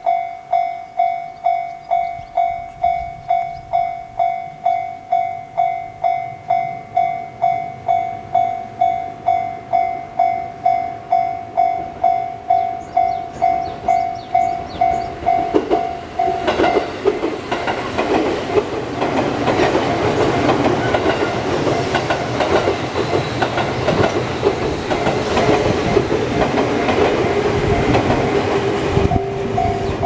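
Japanese level-crossing bell dinging steadily, about twice a second. About 16 seconds in, a JR Kyushu 783 series electric limited express (Midori and Huis Ten Bosch coupled) passes over the crossing, its wheels clattering over the rail joints and drowning out the bell. The bell is heard again near the end.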